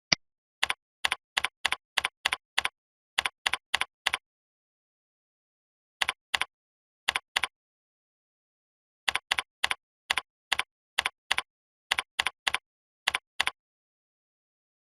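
Typing on a computer keyboard: runs of separate keystrokes with pauses between the runs, the longest run a little past the middle. A single sharper click comes right at the start.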